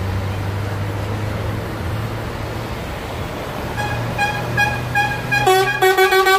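A truck engine runs steadily, then about four seconds in a horn starts sounding in a string of short toots, getting louder and turning into longer blasts near the end.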